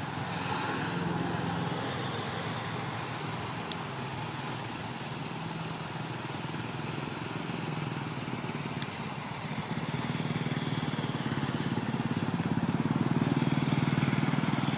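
A motor engine running steadily, growing louder about ten seconds in.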